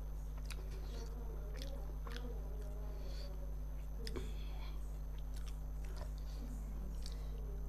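Close-up mouth sounds of a person eating rice and fish by hand: chewing with scattered short, sharp wet smacks and clicks. A steady low hum runs underneath.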